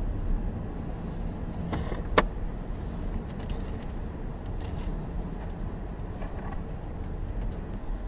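Car driving along a snowy, slushy road, heard from inside the cabin: steady engine and tyre rumble. A sharp click about two seconds in, with a fainter one just before it.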